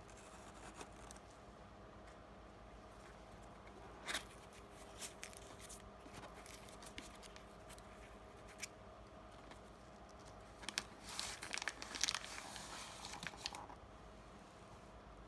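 Screwdriver's cardboard retail box being opened by hand: faint scattered tearing and crinkling of the packaging, with a louder crackle about four seconds in and a longer bout of crinkling around eleven to thirteen seconds in.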